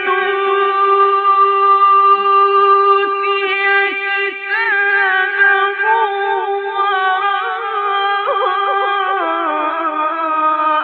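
A solo male voice chants in the drawn-out melodic style of Quran recitation. It holds one long, high note for the first few seconds, then winds it through quick trills and ornaments, and steps down in pitch near the end.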